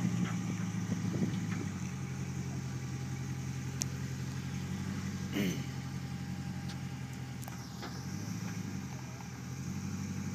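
Land Rover engine running at a steady low speed, its note easing slightly about eight seconds in. A brief sound falling in pitch cuts in about five seconds in, with a few faint clicks around it.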